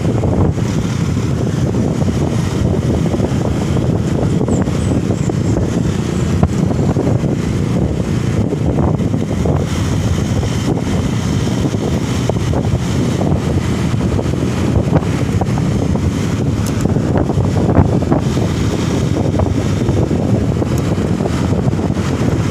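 Steady low rumble of a moving vehicle with wind buffeting the microphone, and a few brief knocks.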